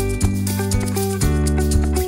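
Background music: plucked guitar chords with light shaker percussion.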